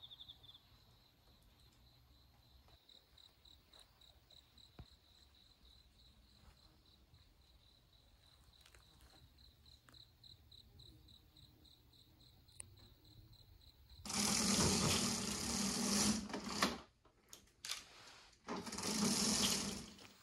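Night insects, crickets or katydids, giving a faint, evenly pulsing high trill. About two thirds of the way in, two loud bursts of broad noise cover it, the first about two and a half seconds long and the second shorter, near the end.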